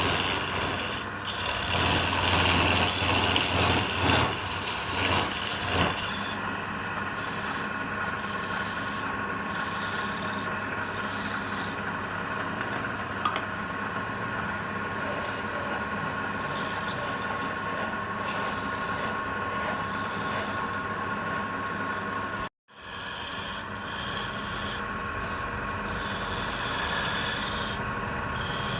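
Wood being abraded with a steady rubbing, scraping sound, louder and fuller for the first six seconds. It breaks off for a moment about 22 seconds in.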